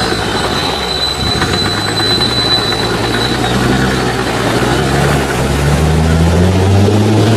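Off-road 4x4 engine running hard under load at close range, its pitch climbing slowly over the last few seconds. A thin high whine runs over it for the first three seconds or so.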